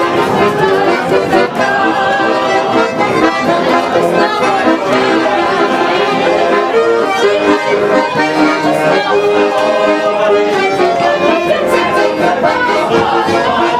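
Button accordion (bayan) playing a tune: a melody over held chords, without a break.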